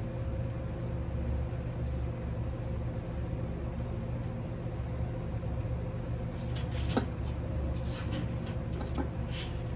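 Steady low machine hum with a thin constant tone above it, and a sharp click about seven seconds in and a lighter one near nine seconds.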